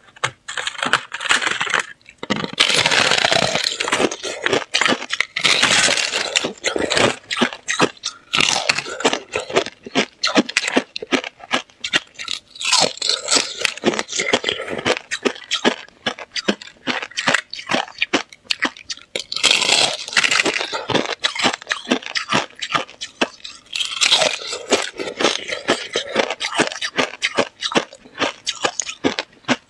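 Thin sheets of clear ice cracking and crackling as they are broken apart by hand and bitten. It is a dense run of sharp snaps and crunches close to a clip-on microphone, with heavier bursts of crackling every few seconds.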